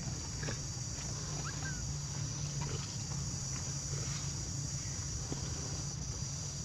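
Outdoor ambience: a steady high insect buzz over a steady low hum, with a few faint short squeaks and ticks.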